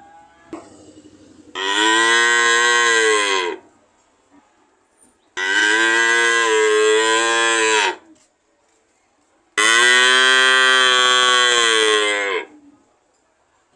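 Cow mooing: three long, loud moos, each lasting two to three seconds, with short quiet pauses between them.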